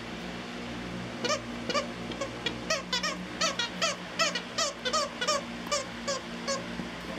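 Squeaker inside a plush donut dog toy squeaking over and over as a Jack Russell terrier chews it. The squeaks start about a second in, come quickly at about three a second, and each is short and high.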